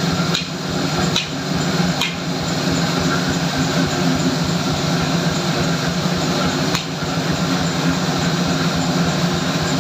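Steady hum and noise of workshop machinery running, with a few sharp knocks: three about a second apart early on and one more about seven seconds in.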